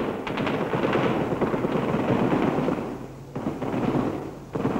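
Rapid bursts of automatic gunfire, crackling almost without a break, heard through an old radio broadcast recording. It eases off briefly a little after three seconds in and again near the end, then picks up.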